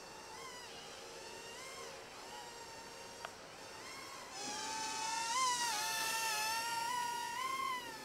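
Electric motors and rotors of a SYMA TF1001 toy RC helicopter whining in flight, the pitch wavering with the throttle. The whine is faint at first and grows clearly louder from about four seconds in. A single sharp click comes a little after three seconds.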